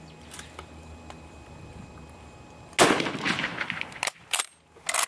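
A single shot from a .303 Lee-Enfield bolt-action rifle about three seconds in, its report rolling away for about a second. It is followed by sharp metallic clacks of the bolt being worked to extract and eject the spent case, one with a brief high ring.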